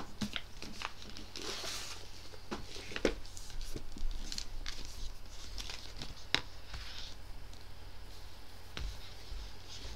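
Paper rustling as pages are turned and handled, with a few small sharp clicks and taps between the rustles.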